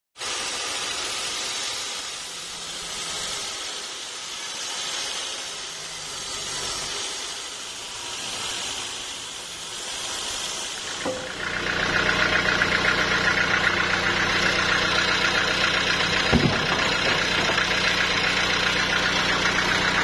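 Sawmill band saw cutting a block of teak: a hissing cutting noise that swells and fades in slow waves. From about eleven seconds a louder, steady machinery hum takes over, with a single knock about sixteen seconds in.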